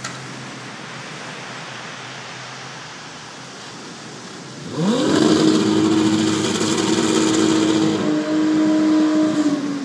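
Surf breaking on a shingle beach with wind on the microphone. About five seconds in, an engine revs sharply up and holds a loud, steady high pitch as the lifeboat is launched into the surf.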